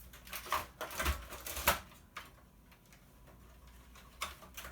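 Sharp clicks and taps of a screwdriver and small metal and plastic parts as a CD changer's face-plate screws are worked out: a quick cluster in the first two seconds, then a few lighter clicks near the end.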